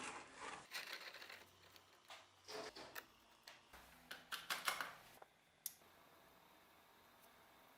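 Irregular handling noises, a string of light knocks and rubs lasting about five seconds, then one sharp click and a faint steady hum.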